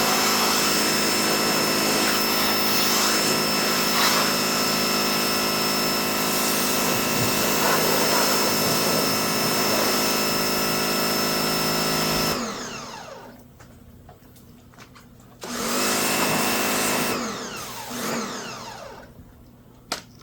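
Pressure washer motor and pump running steadily under load while spraying, then winding down with falling pitch about twelve seconds in as the trigger is let go. It starts again briefly a few seconds later and winds down once more.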